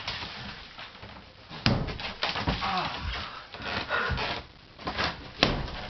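Sledgehammer blows knocking into a plastered wall in demolition work: a heavy strike about a second and a half in, smaller knocks and crumbling between, and the sharpest strike near the end.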